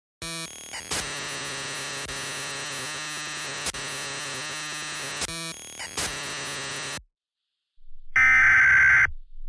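About seven seconds of harsh, steady, static-like electronic noise that cuts off suddenly. Near the end comes a louder, raspy digital data burst about a second long: the first burst of an Emergency Alert System SAME header, which opens a new alert.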